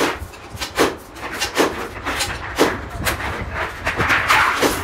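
Thin steel sheet being handled and flexed at a workbench: sharp metallic rattling strokes come about once a second, with scraping and rustling of the sheet in between, denser near the end.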